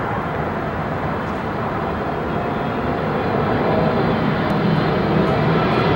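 Boeing 777 jetliner's twin jet engines on approach, a steady rumble with a faint whine, growing louder as the plane comes closer.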